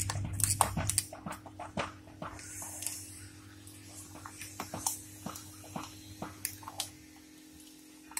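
Steel ladle stirring thick cooked rice and cowpeas in melted jaggery in an aluminium pressure cooker, with repeated clinks and scrapes against the pot as the mixture is cooked down, over a steady low hum that stops about seven seconds in.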